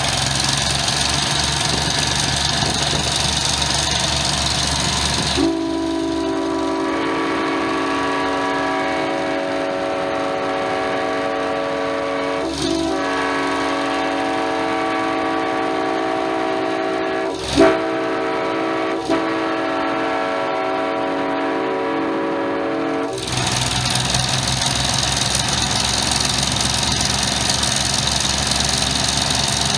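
Diesel locomotive engine running, then a train horn sounds a steady chord of several notes for about seventeen seconds before the engine is heard again.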